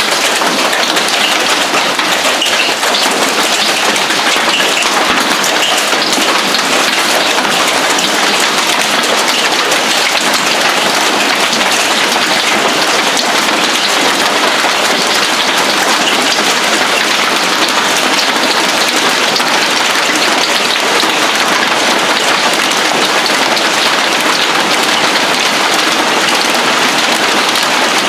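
Hail pelting hard on a roof and the ground: a dense, steady, loud clatter of countless small hits.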